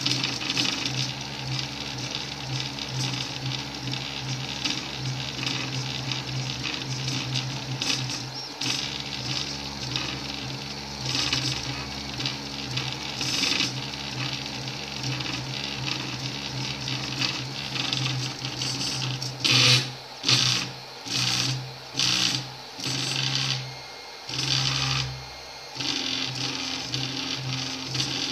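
Anet E16 3D printer running a print: its stepper motors whine as the head and bed move, over a steady hiss. About two-thirds of the way through, the motors run in a string of short bursts with brief pauses between them. The machine is misprinting, laying stringy filament in a shape other than the model it was sent.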